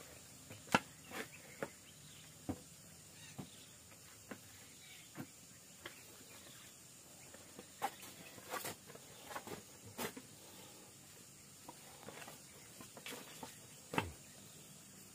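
Faint, irregular short clicks and knocks, about a dozen scattered through, over a low steady background.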